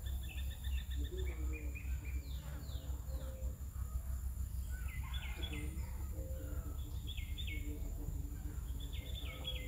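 Birds chirping outdoors, a quick run of sharp notes coming back every couple of seconds, over a steady low rumble and a thin, constant high-pitched whine.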